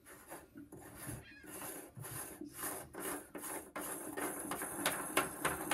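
Black plastic nut being spun by hand down the threaded stem of a Raymarine triducer through-hull housing, giving irregular rubbing, scraping and clicking of the threads that comes quicker after about two seconds.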